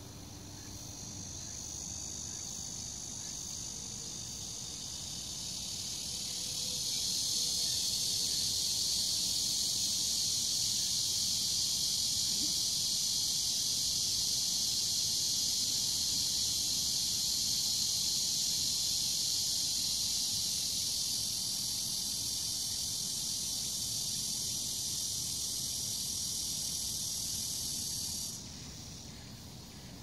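Cicadas buzzing in a dense, steady high chorus that swells over the first several seconds and then stops abruptly about two seconds before the end.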